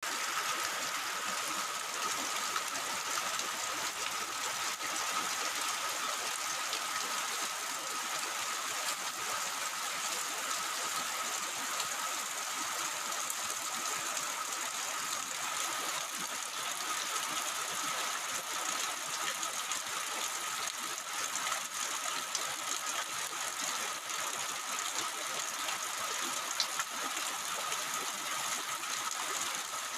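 Heavy rain falling steadily, a dense, even hiss with no letup.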